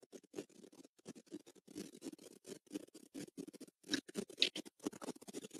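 Faint, irregular scratching and ticking, a few small clicks a second, slightly louder around the middle.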